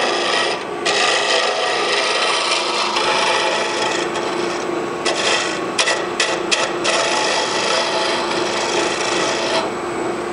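Sandpaper held against a wooden spindle spinning on a wood lathe at about 1500 RPM: a steady rasping hiss over the lathe's steady motor hum. The sanding lifts off briefly about half a second in and a few times past the middle, then stops near the end while the lathe keeps running.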